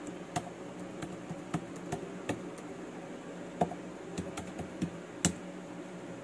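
Scattered, irregular clicks and taps of a computer keyboard being typed on, about a dozen strokes, over a steady low hum.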